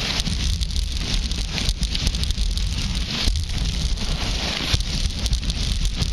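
Skis sliding down groomed snow: a continuous scraping hiss that swells and fades, over wind rumbling on the microphone.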